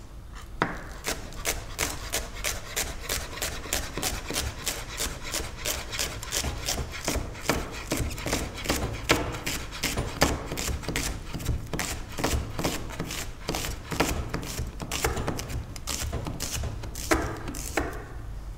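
A knife chopping spring onion on a wooden cutting board, in steady strokes about three a second that stop shortly before the end.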